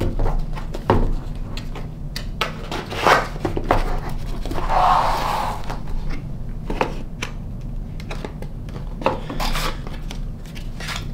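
A cardboard packaging box being handled and opened, with cardboard rubbing and scraping and a longer sliding scrape about halfway through. Several light knocks of the box against a wooden table run through it.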